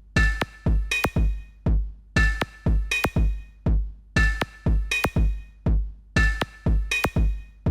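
Electronic music: a drum-machine beat with a heavy kick and sharp hits, with short chord stabs, the pattern repeating about every two seconds.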